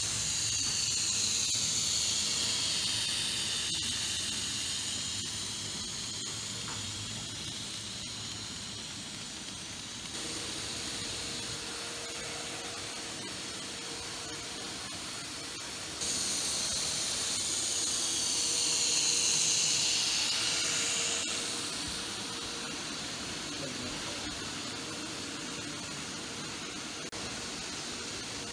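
Z-gauge model train running: a high hissing whine from the tiny locomotive's motor and wheels on the rails, its pitch dipping and rising. It fades somewhat, then sets in again abruptly about 16 seconds in.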